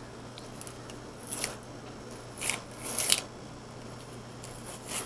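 Insulating wrap and tape being peeled and pulled off the cell bundle of a 12 V LiFePO4 battery pack, giving about four short, scratchy crinkling rustles.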